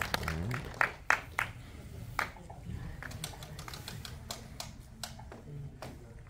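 Scattered hand-clapping from a small audience, thinning out within a couple of seconds to a few isolated claps.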